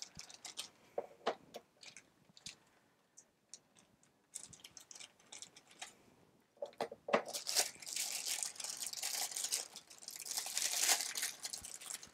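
Clear plastic packaging bags being handled and torn open: scattered light clicks and rustles at first, then steady crinkling and tearing from about seven seconds in.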